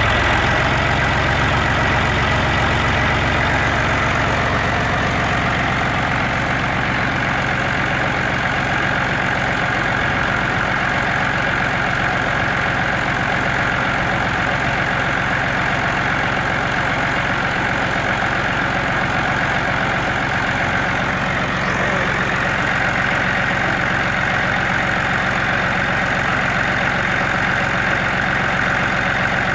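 Massey Ferguson 135 tractor engine idling steadily. A deeper low rumble in the first few seconds eases off about six seconds in.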